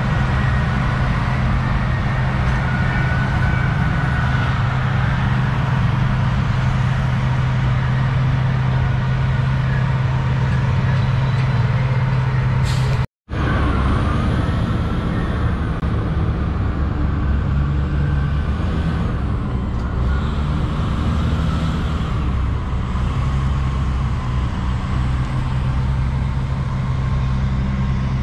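Large diesel mining haul trucks running and driving past, a steady low engine drone. The sound cuts out for a moment about halfway through, then heavy diesel engine rumble carries on.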